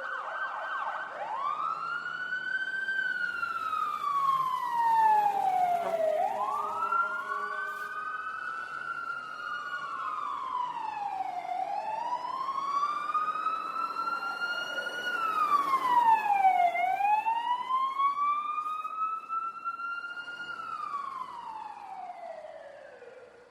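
Fire truck siren wailing, its pitch slowly rising and falling about every five seconds, four times over. It fades out near the end.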